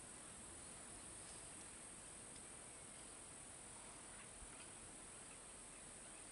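Near silence: a faint, steady high-pitched insect drone, with a few faint, scattered chirps.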